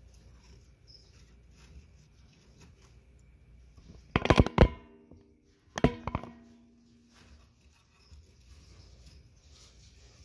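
Faint rustling handling noise, broken about four seconds in by a quick cluster of sharp clattering knocks with a short ring, and a second, smaller cluster about a second and a half later.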